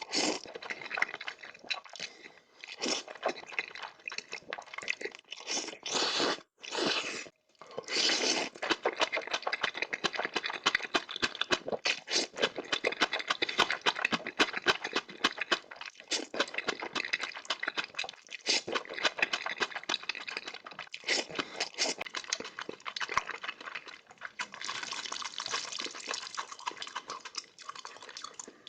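Close-miked eating of noodles: a dense run of wet slurps, smacks and chewing, with a couple of brief pauses about six to seven seconds in.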